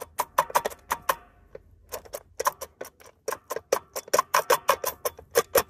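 MTZ-80 tractor clutch disc being worked by hand, giving a rapid, irregular run of sharp metallic clicks with a short pause about a second and a half in. The disc is judged worn and due for replacement.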